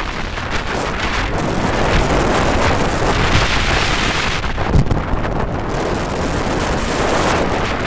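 Intamin wooden roller coaster train running at speed, its wheels rumbling and clattering over the wooden track, with heavy wind rushing over the microphone. A sharper thump about five seconds in.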